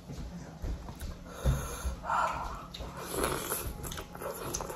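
A person eating a steamed momo dumpling close to the microphone: chewing with noisy breaths and sniffs. Two breathy huffs come about two and three seconds in, the sort of hard breathing that hot, spicy achar brings on.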